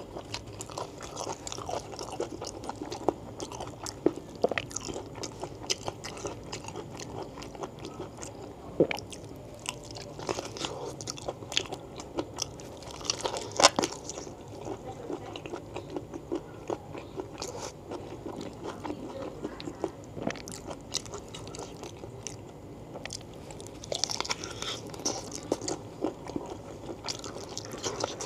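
Close-miked chewing and biting of gelatinous beef foot tendon and fat in spicy curry, eaten by hand: a steady run of wet mouth clicks with a few louder crunchy bites, the loudest about halfway through.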